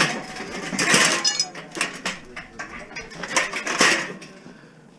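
Metal folding-bed frame rattling and clanking as it is handled, with a short metallic ring about a second in. There are two louder scraping rushes, about a second in and near four seconds.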